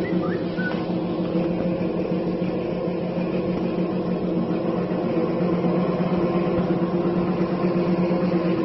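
Dog treadmill's electric motor and belt running under a variable-frequency drive: a steady hum with a few held tones, getting a little louder about halfway through.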